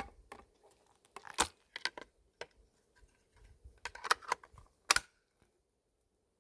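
A string of irregular sharp clicks and clacks of something being handled, two of them louder, about a second and a half in and near five seconds in.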